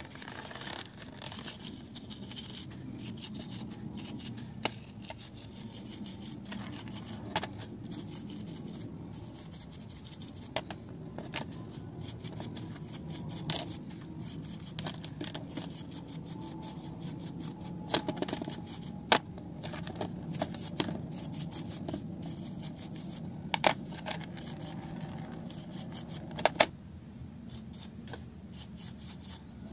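A bristle paintbrush scrubbing small steel gears from a Bosch GSR 12-2 drill's planetary gearbox in a tub of gasoline, a continuous wet brushing noise. A few sharp metallic clicks as the gears knock against each other and the tub, the loudest past the middle and near the end.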